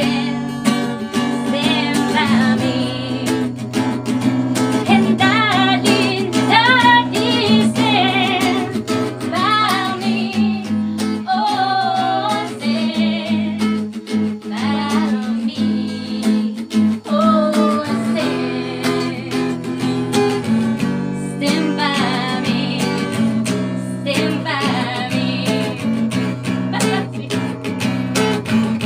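A woman singing a song with a wavering vibrato, over strummed acoustic guitar chords.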